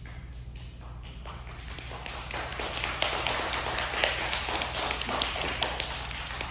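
Audience applauding, swelling about two seconds in and thinning out near the end.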